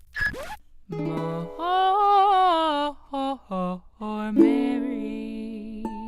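A short musical intro jingle: a voice sings a few held and gliding notes over plucked strings, with a quick whoosh at the very start.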